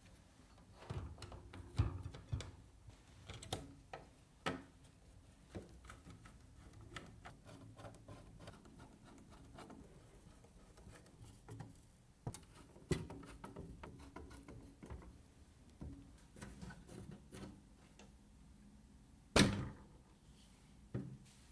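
PC parts and case being handled during assembly: scattered light clicks, taps and knocks of plastic and metal, with one louder knock near the end.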